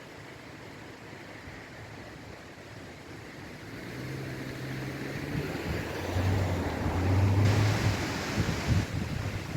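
Steady rushing of floodwater with wind buffeting the microphone; a low engine hum comes in about four seconds in and grows louder near the end.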